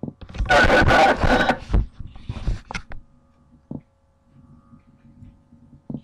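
Static crackle and clicks on a taped radio-scanner recording: a loud, ragged burst of noise lasting about two and a half seconds, then quieter hiss broken by two sharp clicks.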